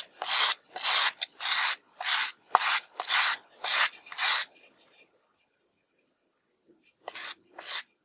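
Steel file scraped back and forth across the wire bristles of a file card, about two strokes a second, then a pause of about two seconds and two more strokes near the end: brushing filings out of the file's teeth to keep it from clogging.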